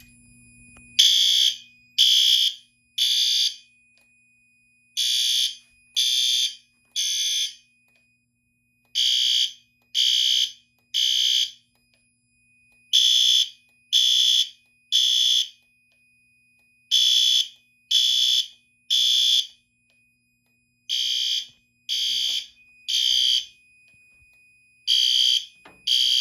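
Fire alarm horns sounding the temporal-3 evacuation pattern: groups of three shrill beeps with a pause between groups, repeating steadily. The system is in alarm from a pulled manual pull station.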